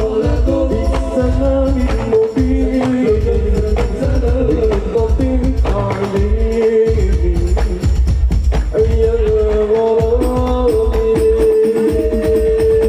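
Male voices singing an Islamic sholawat melody into microphones, over hadrah percussion with a steady low drum beat.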